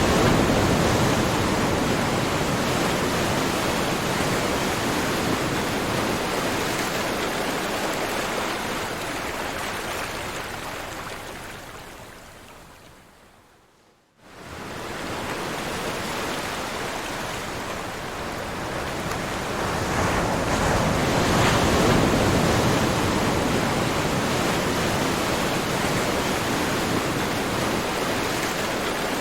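Ocean waves washing on a shore as a steady hiss that swells and ebbs. About halfway through it fades away to near silence, then cuts back in suddenly and builds to a louder swell.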